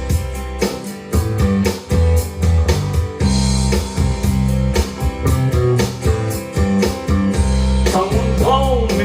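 Rock song's instrumental intro: guitar and bass over a steady drum beat, with a male voice starting to sing about eight seconds in.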